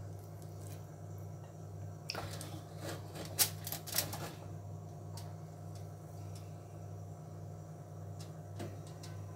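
Cooking oil heating in a pan for deep-frying: a few light ticks and crackles between about two and four seconds in, over a steady low hum.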